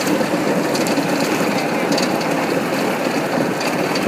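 Golf cart driving along: a steady running noise with a few short rattles and knocks.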